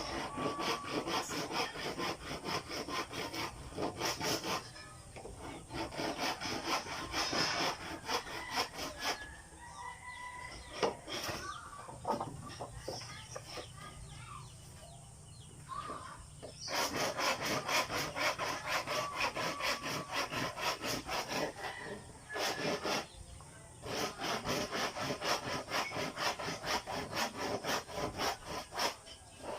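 Handsaw cutting through wood in several runs of rapid back-and-forth strokes, with a longer pause in the middle.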